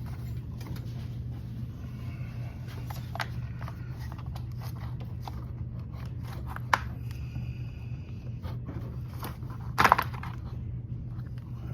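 Hand-fitting small parts into an RC truck's chassis: light scrapes and clicks of plastic and metal pieces being handled, with a sharp click about two-thirds of the way in and a louder knock near the end, over a steady low hum.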